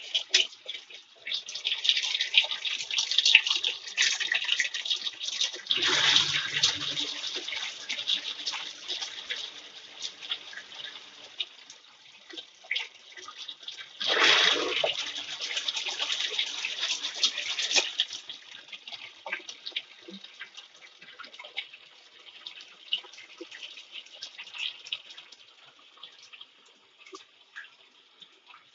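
Water running and splashing in the tub of a Panasonic semi-automatic washing machine, in uneven surges that are louder about six seconds in and from about fourteen to eighteen seconds in, then die down.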